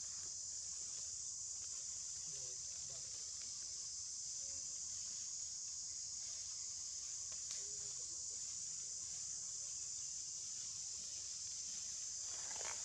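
Steady high-pitched drone of an insect chorus in the trees, with a few faint short chirps and a brief rustle near the end.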